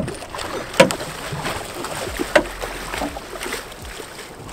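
Water splashing and sloshing at a boat's side as a hooked cobia thrashes beside the hull, with several sharp splashes or knocks, the loudest about a second in.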